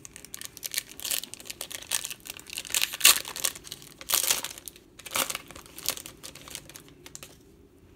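Foil wrapper of a trading card pack being crinkled and torn open by hand: a run of irregular crackles, loudest around three to five seconds in, settling down near the end.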